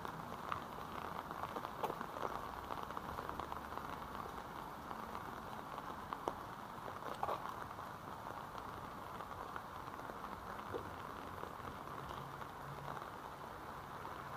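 Steady rain falling, an even hiss with scattered sharper ticks of single drops landing close by.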